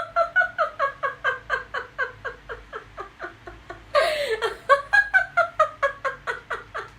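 Deliberate laughter-yoga laughter from one voice: rapid, even 'ha-ha-ha' pulses, about five a second, falling in pitch across each run. A fresh, louder run starts about four seconds in.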